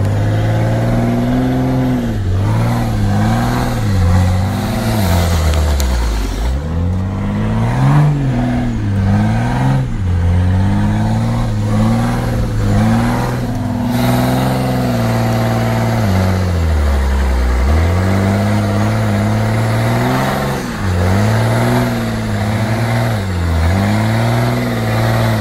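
Cummins diesel engine of a pickup truck revving up and down over and over under load as the truck is driven through a muddy field.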